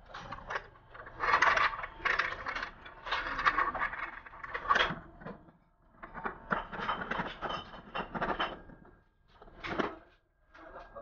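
An aluminium-edged cabinet panel board being fitted into the aluminium frame of a cabinet, metal profile rubbing and clattering against the frame. The noise comes in several bursts, pausing about halfway, with one short knock near the end.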